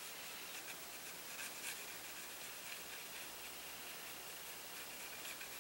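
Faint, scratchy strokes and dabs of a small paintbrush laying acrylic paint onto a card, a few soft ticks over a steady hiss.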